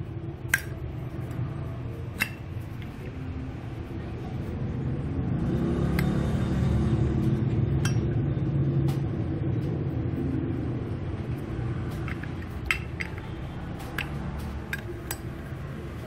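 Zippo lighter being handled: scattered sharp metallic clicks and clinks as the lid is worked and the chrome insert is slid out of and back into the brass case, over a low rumble that swells in the middle.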